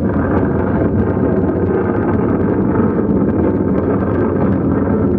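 Simulated dynamite blast in a mine tunnel: a loud, steady rumble thick with crackling, like rock being blasted.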